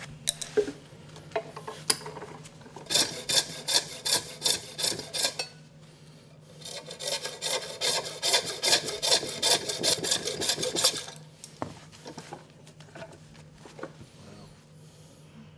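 Coping saw cutting through a small block of walrus ivory held in a bench vise: two runs of quick back-and-forth rasping strokes, about three a second. A few sharp clicks from handling the piece and vise come before the sawing.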